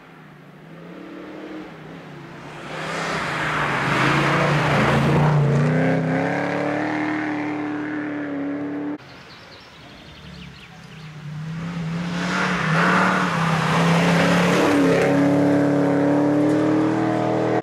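Plymouth Valiant rally car's engine revving hard as the car approaches and passes at speed, its pitch rising and stepping between gears. The sound breaks off abruptly about halfway through, then a second pass builds up loud again.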